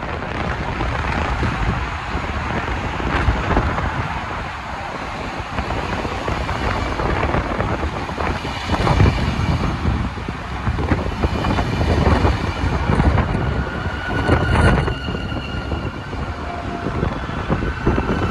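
DSB passenger train (Litra ABs control car and Litra B coaches) running through the station: a steady rumble and rush of wheels on rails with a few knocks. Thin high tones come in about halfway.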